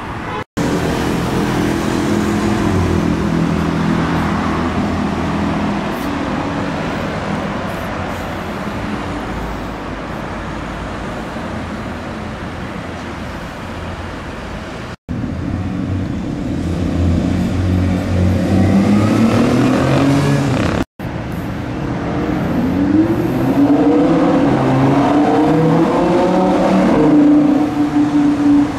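Sports car engines running and accelerating, their pitch rising in several pulls in the later part. The sound drops out briefly three times, about half a second in, halfway through and about two-thirds through.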